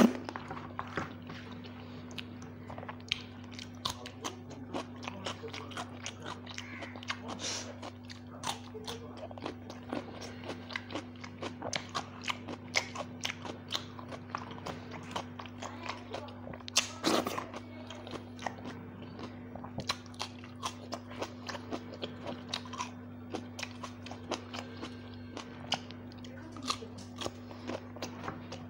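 Close-miked chewing and lip-smacking of a person eating a rice meal by hand, with many short mouth clicks and occasional crunchy bites, over a steady low hum.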